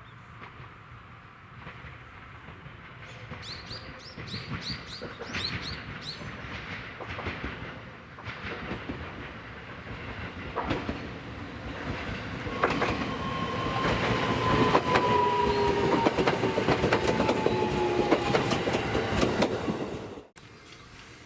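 Train rolling through a station, its wheels clacking over the rail joints and growing louder from about halfway. A steady squeal, falling slightly in pitch, rides over it for the last several seconds, and then the sound cuts off suddenly.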